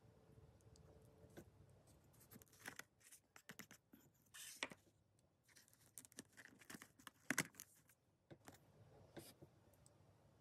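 Faint handling sounds of a small wooden block with a paper label being pressed down and picked up: scattered light clicks, taps and short scrapes, with one sharper click about two-thirds of the way through.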